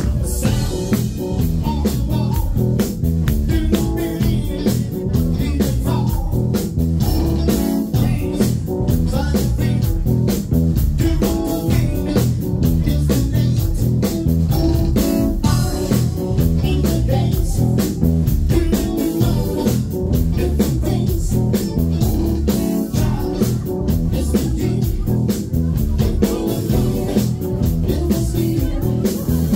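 Live band playing with drums, bass guitar and electric guitar, a steady beat throughout.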